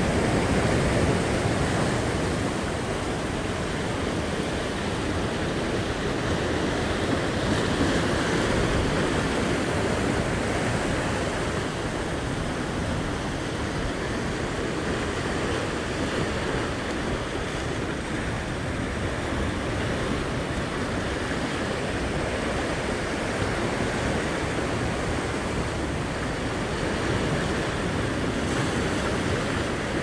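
Sea surf washing and churning against the rock ledge, a steady rushing noise.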